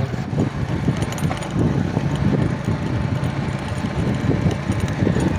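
Honda CD 70 motorcycle's single-cylinder four-stroke engine running steadily while the bike is ridden, just after its clutch sprocket (clutch gear) set has been repaired to cure a gear noise.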